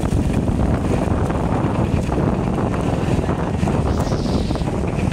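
Wind buffeting the microphone over the running engine of a moving motorbike, a steady loud rumble.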